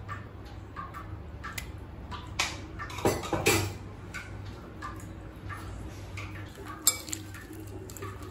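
A spoon knocking and scraping against a glass mixing bowl as thick masala paste is added to boiled raw banana slices: a few scattered clinks and soft knocks, loudest about three seconds in, with stirring starting near the end.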